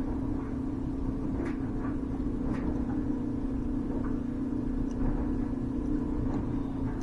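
Steady low hum of a smoke leak tester's air pump running while it feeds smoke into the Jeep's evaporative system to find a very small leak, with a few light clicks.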